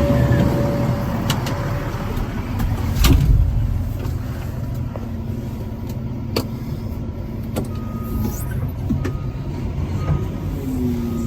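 Caterpillar 730 articulated dump truck's diesel engine running steadily, with scattered clanks and a louder knock about three seconds in; near the end the engine note dips.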